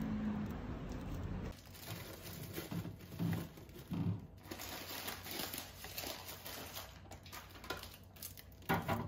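Plastic shopping bags crinkling and rustling while groceries are taken out and put into a refrigerator drawer, with scattered soft knocks and a louder rustle near the end. For the first second and a half a low traffic hum runs under it, then cuts off.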